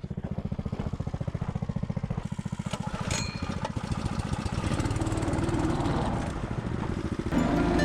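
Small engine of a walk-behind-tractor snowbike running with a rapid, even pulse, picking up speed and getting a little louder about halfway through. Music comes in near the end.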